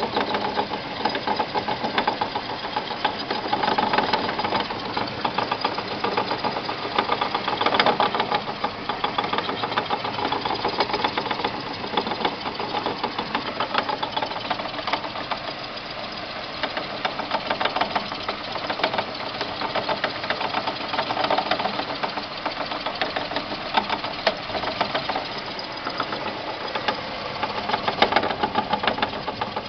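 2002 Renault Clio's engine running with a rapid, continuous knocking rattle. The owner takes the knock for a worn tripod joint in the driveshaft's tulip housing, the CV joints being new, while the mechanic puts the fault in the engine.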